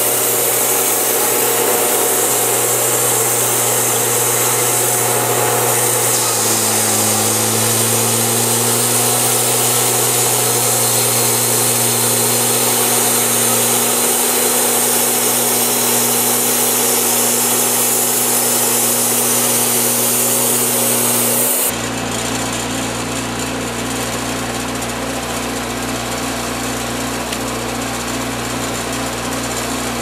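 Wood-Mizer portable band sawmill running, its engine droning steadily under the dense hiss of the band blade sawing through a log. The sound changes abruptly about two-thirds of the way through, the hiss dropping and the engine note coming to the fore.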